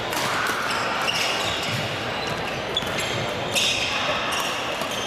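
Badminton doubles rally on a gym court: rackets striking the shuttlecock in sharp cracks and court shoes squeaking on the floor. The sound echoes through a large hall.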